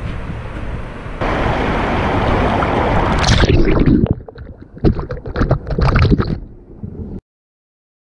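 Wind buffeting an action camera's microphone as a rough, rushing noise. It grows louder about a second in, breaks into irregular gusts in the second half, and cuts off suddenly near the end.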